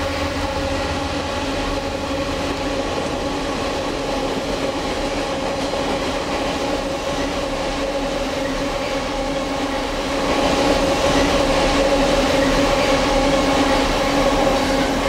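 Passenger train rolling past: a steady rumble with a held, unchanging tone over it, growing louder about ten seconds in.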